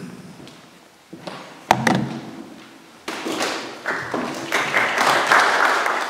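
Knocks and handling noise at a lectern microphone: a sharp thump about two seconds in, then a louder rustling noise from about three seconds on that keeps growing.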